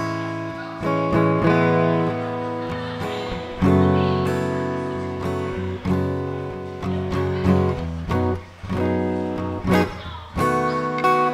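Solo acoustic guitar playing an instrumental passage: chords struck every second or so and left to ring and fade between strokes, with no singing.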